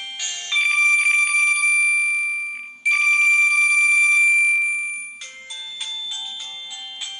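MIDI ringtone melody: quick electronic notes, then two long high held notes of a couple of seconds each that fade away, then the quick notes start again.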